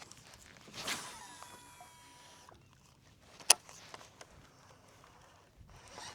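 A cast with a fishing reel: a swish of the rod, then the spool spinning with thin whining tones that fall in pitch, followed by a single sharp click of the reel about three and a half seconds in.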